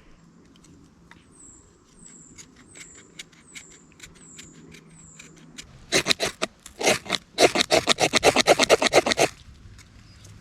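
Knife blade scraping fatwood into fine tinder shavings. The first half is faint, slow strokes. About six seconds in come loud, rapid rasping strokes, several a second, which stop after about three seconds.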